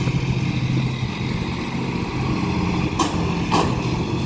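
Heavy dump truck's engine running steadily as it drives and turns, with two short scraping knocks about three seconds in, half a second apart: the stainless steel debris pan under the front-mounted Baffin magnetic sweeper scuffing the pavement.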